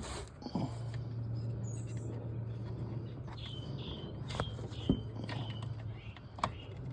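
Small birds chirping in short repeated notes, with a few sharp clicks and taps of small screws and the plastic lamp housing being handled, over a steady low hum.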